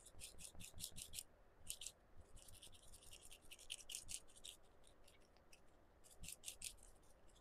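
Makeup sponge dabbed quickly against the face to blend in concealer: faint, rapid soft pats, about five or six a second, in several runs with short pauses between them.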